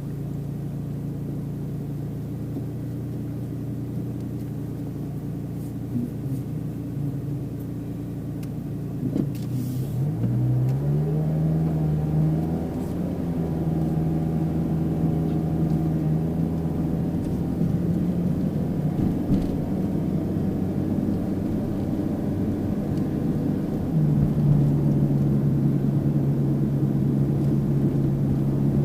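Small engine of a Mitsubishi Pajero Mini kei car running steadily with road rumble. About ten seconds in, the engine rises in pitch as the car accelerates, then settles into a steady drone. It grows louder again near the end.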